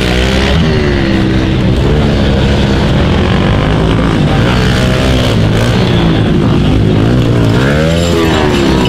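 Pit bike engines revving on and off the throttle, their pitch rising and falling again and again, with a sharp climb and drop near the end.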